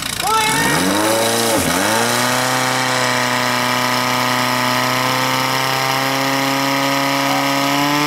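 Portable fire pump's engine running at high revs: its pitch sags sharply about a second in, then climbs back and holds steady at full throttle.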